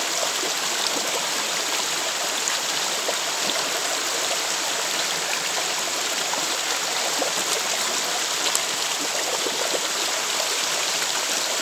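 Shallow rocky stream flowing steadily, its water running over stones in an even, unbroken rush.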